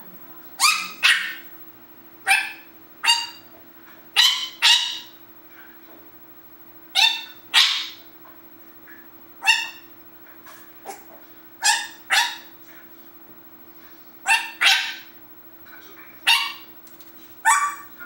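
Timneh African grey parrot giving about fifteen short, sharp, bark-like calls, many in quick pairs.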